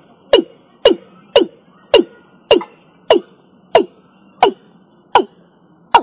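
Watercock (Gallicrex cinerea) calling: a steady series of about ten short, sharp notes, each falling in pitch. They come about two a second at first and slow a little toward the end.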